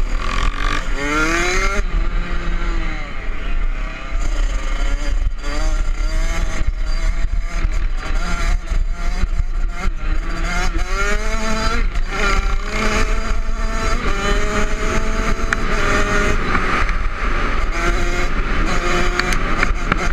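Kawasaki KX65 two-stroke single-cylinder dirt bike engine being ridden, revving up and down repeatedly with its pitch climbing and dropping through the gears. Wind buffeting and knocks on the bike-mounted microphone sound throughout.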